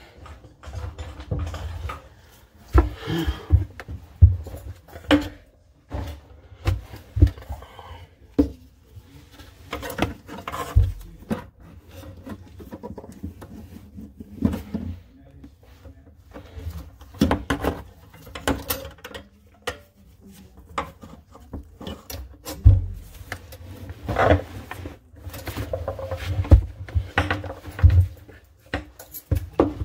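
Irregular knocks, clicks and rustling from gloved hands handling the drain pipes and pop-up drain linkage inside a bathroom sink cabinet.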